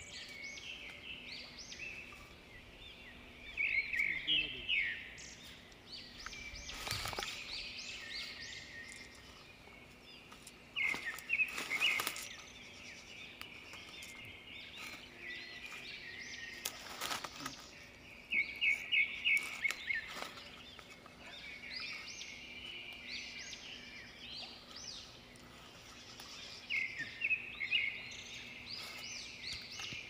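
Wild birds calling: bursts of quick, high chirps repeated every several seconds, with a few brief rustles in between.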